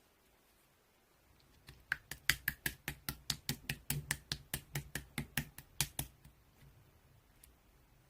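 Slime being worked by hand, giving a quick run of sharp clicks and pops, about five a second, that starts about two seconds in and stops after roughly four seconds.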